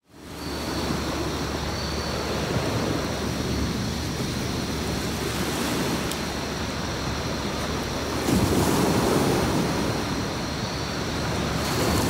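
Sea waves washing onto a beach, a steady surf hiss that fades in over the first second and swells as a bigger wave comes in about eight seconds in.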